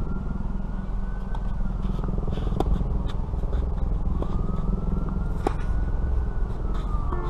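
Steady low wind rumble buffeting the microphone, with a few sharp racket-on-ball hits of a tennis rally, the loudest about two and a half and five and a half seconds in.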